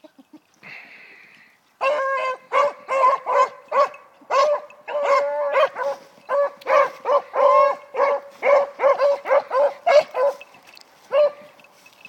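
Beagle hound baying on a scent trail: a rapid string of short, ringing yelps mixed with a few longer drawn-out notes. It starts about two seconds in and breaks off about a second before the end.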